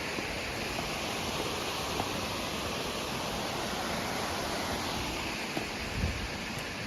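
Steady rushing water of a stream and waterfall. A few faint knocks are heard, and a low thump comes near the end.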